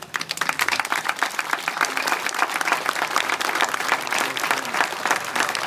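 Crowd applauding: many hands clapping in a dense, steady patter that starts all at once.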